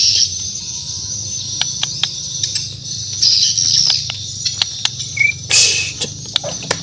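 White-crowned shama (murai batu Borneo) singing: high, rapid chattering notes mixed with sharp clicks, a short whistled note about five seconds in, then a harsh rasping burst.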